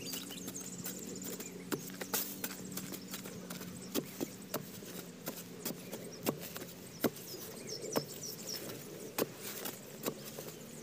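Metal-bladed digging spade chopping into dry, hard clay soil to dig out a field crab burrow: irregular sharp knocks and scrapes, about one to two a second.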